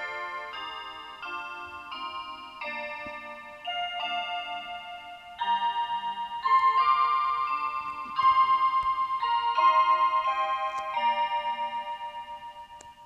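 Electronic chime melody from a program timer's built-in chime: a string of sustained, pulsing notes that changes pitch every half second to second and a half. The last note dies away near the end.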